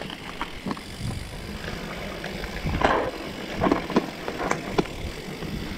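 Mountain bike rolling down a dirt singletrack: steady tyre and rolling noise, with several sharp knocks and rattles from the bike over bumps from about three seconds in.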